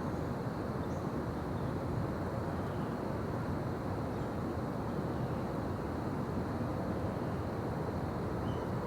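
Daytime forest ambience: a steady low rushing background noise with a few faint, brief bird chirps, one about a second in and one near the end.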